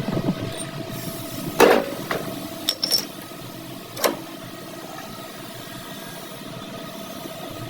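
Four metal knocks and clinks, the loudest about one and a half seconds in, with a short ring after it, then two quick clinks and a last knock around four seconds in, over a steady machine hum.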